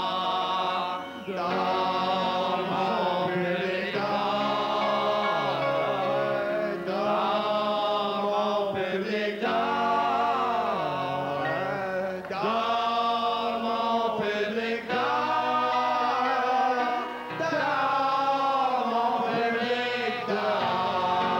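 Several men singing a song together into stage microphones, in sung phrases of a second or two. Under the voices, steady low accompaniment notes change every few seconds.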